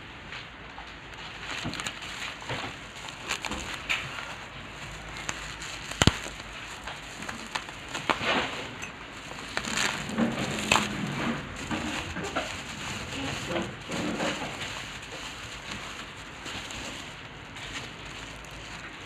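Plastic packaging crinkling and rustling as it is handled, with scattered clicks and one sharp click about six seconds in.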